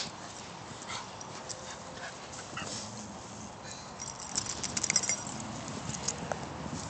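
Miniature schnauzers playing, quiet apart from faint whines and panting. From about four seconds in, a spell of crackling and rustling.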